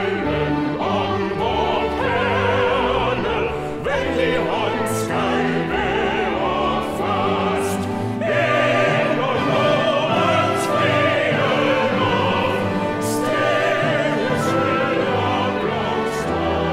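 Operatic singing by a small group of classically trained voices, held notes with wide vibrato.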